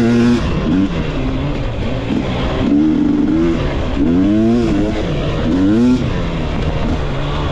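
Single-cylinder two-stroke engine of a 2022 GasGas MC250 motocross bike revving up and falling back several times as it is ridden, then holding a lower, steadier note near the end.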